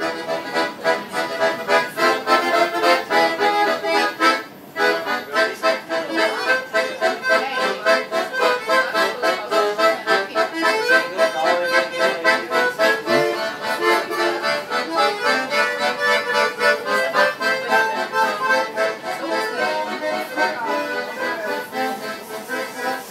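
Piano accordion playing a tune with held chords, with a brief break in the notes about four seconds in.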